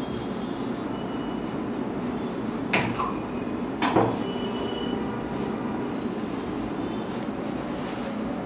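Knife cutting through a frozen anar kulfi, frozen extra hard, on a plastic cutting board: two sharp knocks, one nearly three seconds in and one about four seconds in, over a steady background hum.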